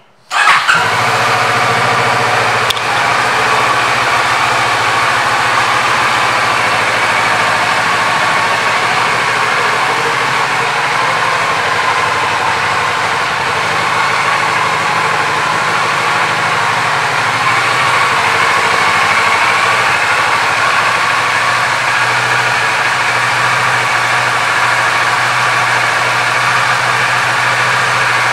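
2022 Kawasaki Z650RS's 649 cc parallel-twin engine starting just after the beginning, with a short flare of revs, then idling steadily.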